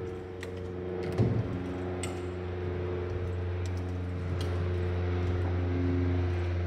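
Hand-pumped hydraulic aircraft tripod jacks being worked to raise the plane, giving scattered light metallic clicks and clinks over a steady low hum.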